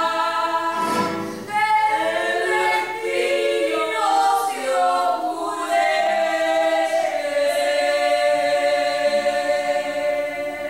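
Choral singing: several voices singing sustained notes in harmony, settling about six seconds in onto one long held chord.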